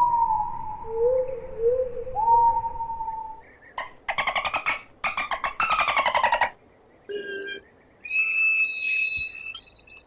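Dolphin whistles and a pulsed call: a few gliding whistles at first, then a buzzing squawk made of rapid clicks lasting about two and a half seconds, then shorter, higher whistles near the end.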